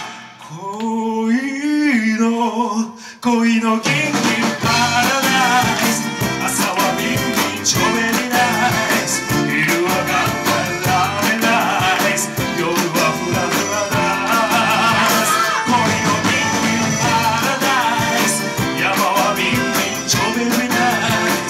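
Live band playing a mood kayō (Japanese lounge-pop) song with a male lead singer. The band drops out at the start and the voice sings a phrase alone, then the full band of saxophone, guitars, keyboards, bass and drums comes back in about four seconds in, with singing over it.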